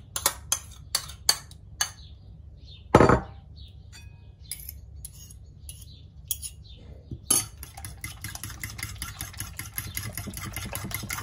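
A metal spoon taps several times against a bowl, then one louder knock comes about three seconds in as a bowl is set down on the worktop. From about seven seconds, a fork beats eggs and crème fraîche in a bowl with a fast, even clicking.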